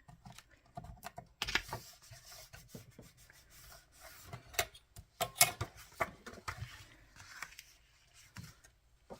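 Cardstock being handled, folded and creased against a ruler, with irregular scraping and rubbing and sharp taps of the ruler and paper on the work surface.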